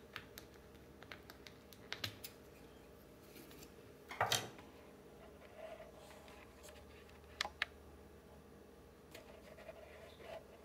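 Scattered small clicks and taps, with a brief rustle about four seconds in and two quick clicks past seven seconds: 3D-printed plastic parts being handled.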